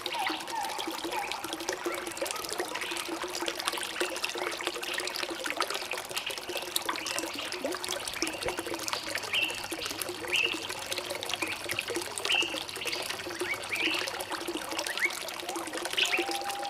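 A small stream trickling and babbling steadily, with short bird chirps and rising whistled notes scattered over it.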